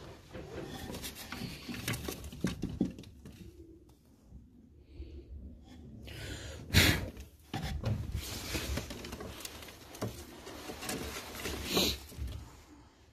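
A pair of Baku fighting pigeons shifting about in a clay nest bowl: rustling of feathers and nest straw with scattered scuffs, and a sharp knock about seven seconds in.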